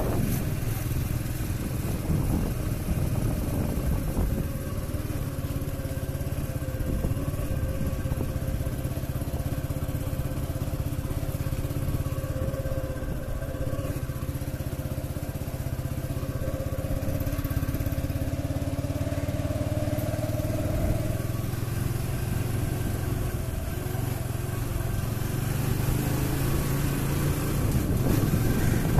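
TVS Apache RTR 180's single-cylinder four-stroke engine running at low, fairly steady revs as the motorcycle is ridden slowly.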